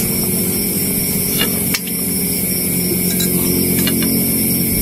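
A steady motor drone with an even hum, with a few light clicks of serving utensils against the pan and bowl.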